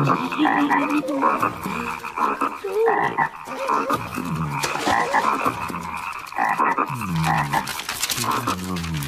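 A crowd of cartoon frogs croaking together: many overlapping ribbits at different pitches, rising and falling.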